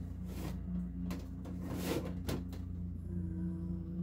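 Brief rustles and light knocks of paper and tools being handled at a craft table, several times, over a steady low hum.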